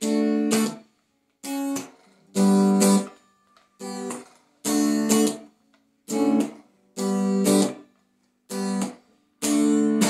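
Electric guitar played through an amp, strumming about ten chords one after another, each ringing under a second and then cutting off abruptly into silence before the next.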